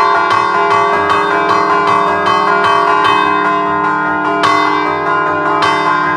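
Three-bell peal in E-flat by De Poli (1947), the bells held stationary and struck by hand through chains pulled on their clappers: a Friulian scampanottata, quick rhythmic strikes about three a second, each ringing on under the next.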